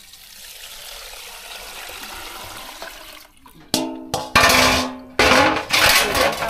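Water poured from an aluminium basin through a plastic colander into a pot of grains, a steady splashing pour. A little over three seconds in, a metal basin clangs once and rings. Loud irregular swishing and splashing follows as the grains are washed by hand in the water.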